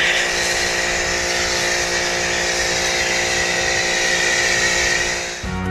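Pressure washer running steadily, a motor's hum under the hiss of a foam cannon spraying soap foam; it stops near the end as rock music comes in.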